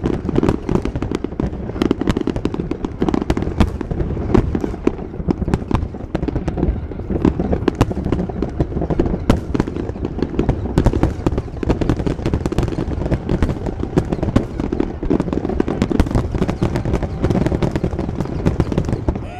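Fireworks display: aerial shells launching and bursting in a rapid, unbroken string of overlapping bangs.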